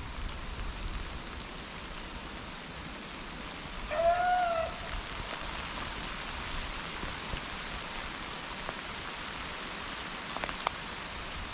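A rabbit-hunting hound gives a single short bay about four seconds in, over a steady hiss. A couple of faint ticks come near the end.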